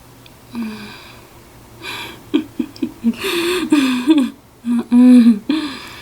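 A woman's voice making several short, breathy, wordless sounds, like hums and sighs.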